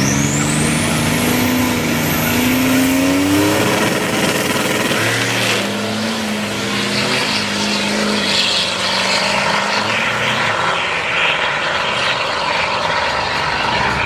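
Buick Grand National's turbocharged V6 accelerating hard off the line. Its pitch climbs, drops at a gear shift about three and a half seconds in, then climbs again through the next gear, with a high whistle rising over the first couple of seconds.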